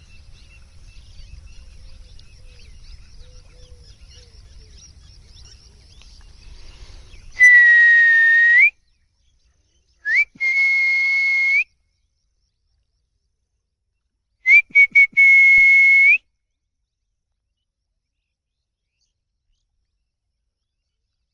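A man's mouth whistle calling farmed pangas fish to the pond edge. There are three long, steady, high whistles, each rising in pitch at its end; the second starts with a short upward chirp and the third with a few short blips. Before the whistles there are faint insect and bird chirps, and after the third the sound cuts off abruptly.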